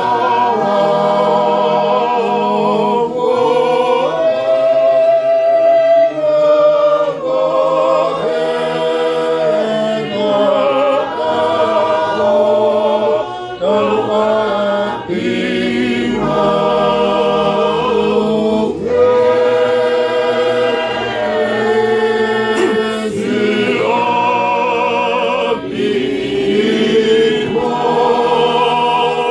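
A small congregation of men and women singing a Tongan hymn unaccompanied, in several-part harmony, with long held notes and short breaks between phrases.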